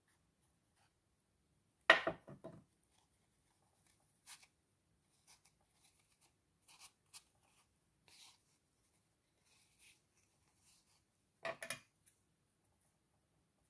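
Scissors snipping through fabric, with faint handling clicks and rustles between cuts; a pair that cuts poorly. A louder cluster of quick clacks comes about two seconds in and again near the end.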